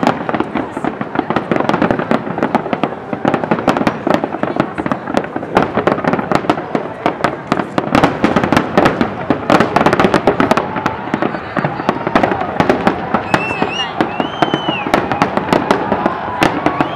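Large fireworks display: a dense, unbroken barrage of aerial shell bursts, bangs and crackles, many overlapping every second, loud throughout.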